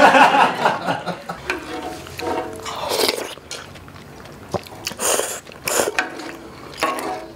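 Ramen noodles being slurped from a ladle and chewed, with several short hissing slurps, the loudest around five and six seconds in.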